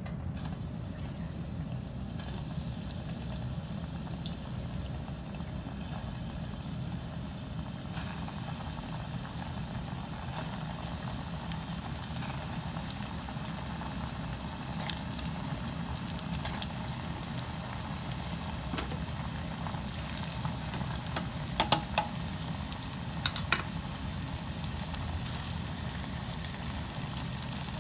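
Cornstarch-coated pork pieces deep-frying in hot oil in a stainless steel pot: a steady bubbling sizzle. A few sharp clicks stand out about three-quarters of the way through.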